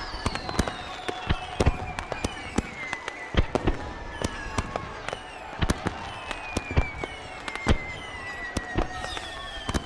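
Fireworks going off: irregular sharp bangs and pops, some loud, with long falling whistles sliding down in pitch over several seconds.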